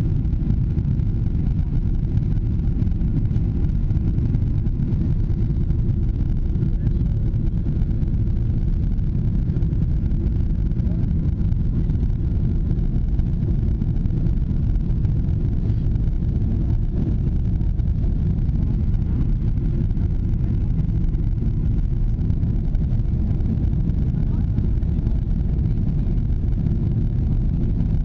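Steady low rumble inside an airliner's cabin during the climb after takeoff: jet engines and rushing airflow heard through the fuselage.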